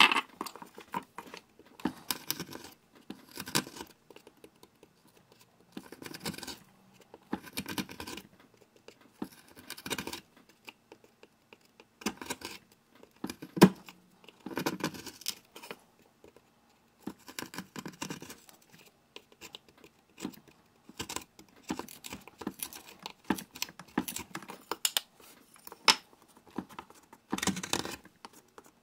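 Hook knife cutting out the bowl of a wooden spoon: short scraping, slicing strokes through the wood, coming in irregular bursts every second or two, with one sharper, louder cut near the middle.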